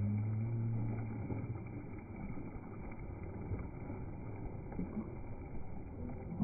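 Slowed-down sea water and wind, pitched very low, with a drawn-out deep tone in the first second.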